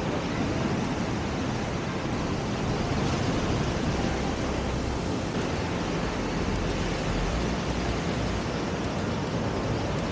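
Steady rush of ocean surf breaking on a beach, mixed with wind rumbling on the microphone.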